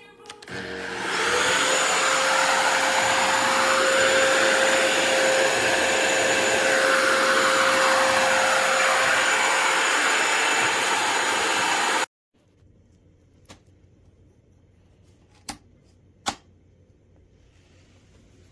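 Kenmore DS1030 cordless stick vacuum's motor spinning up about a second in and running steadily with a whine, then cutting off suddenly about twelve seconds in. A few faint clicks follow.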